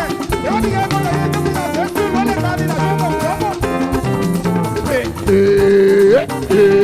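Live gospel praise band music with an upbeat dance groove. About five seconds in, a loud held note comes in over the band and is the loudest sound.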